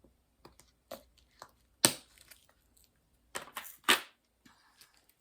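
Close handling noises: a run of small clicks and crinkling rustles, with two louder crackles about two and four seconds in.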